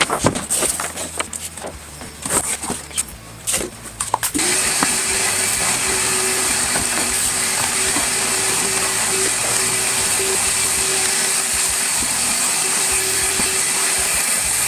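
Clattering knocks of things being moved. About four seconds in, a shop vacuum starts and runs steadily with a constant motor whine and hiss, cleaning out the garage.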